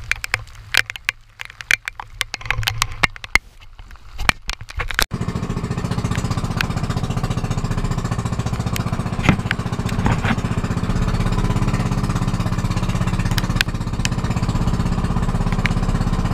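Scattered sharp clicks and knocks, then about five seconds in a small boat engine is running, loud and steady with a fast even chugging pulse.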